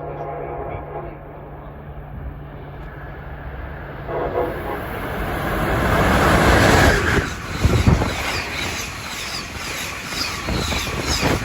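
Passenger train passing at speed: a steady low hum gives way to a rushing swell that peaks about seven seconds in, then rhythmic clatter of wheels over rail joints.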